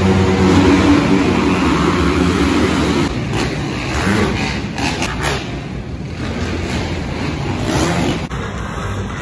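A pack of 85cc two-stroke motocross bikes revving hard off the start and racing around the dirt track. The engines are loudest in the first three seconds, then run on a little lower as bikes pass.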